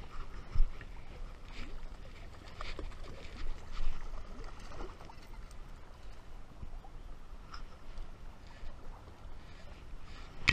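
Water splashing as a hooked trout thrashes at the surface of a running river while it is played on a spinning rod and brought to the landing net. There are irregular splashes throughout, and a sharp knock right at the end.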